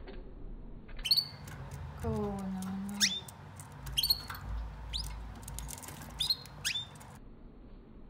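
Male canaries squabbling: short, sharp chirps that sweep steeply in pitch, about six of them spread over five seconds, with light clicks among them.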